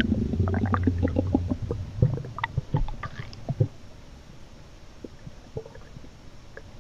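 Hungry stomach growling: a low rumble, then a quick run of wet gurgling pops and squelches that thin out to faint gurgles after about four seconds.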